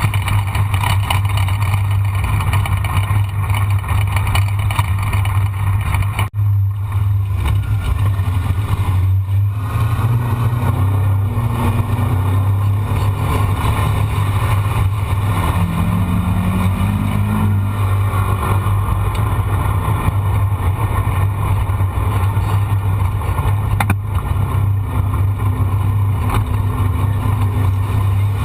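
A vehicle engine running steadily at a constant pace, a strong low hum whose pitch shifts slightly now and then.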